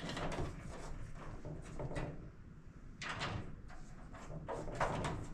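Clicks, knocks and clatter of a K&J collapsible dog crate being handled and fitted together: panels, rails and latches knocking against each other, with a brief pause about two seconds in.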